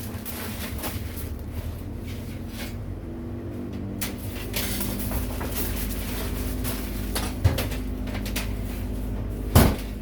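Steady hum of running machinery with scattered clatter and knocks from equipment and trays being handled during hamburger production; a sharp knock about seven seconds in and a louder thump near the end.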